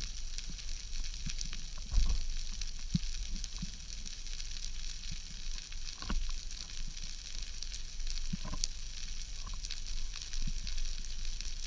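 Underwater ambience over the seabed: a steady fizzing crackle of many tiny clicks, with a few faint knocks about two, six and eight seconds in.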